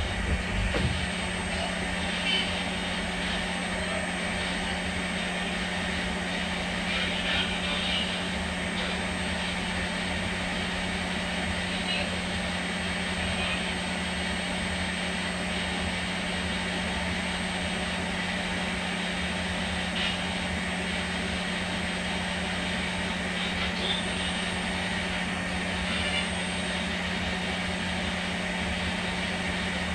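Unitree GO2 robot dog's motors and cooling fan whirring steadily, with a constant low hum and a few faint knocks.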